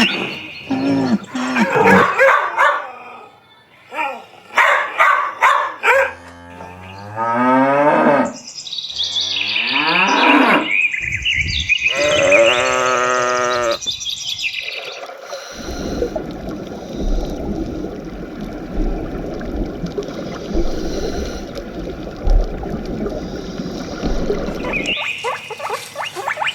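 Cows mooing, several long calls that rise and fall in pitch, with birds chirping at the start and near the end. About halfway through, a steady rushing noise takes over for roughly ten seconds.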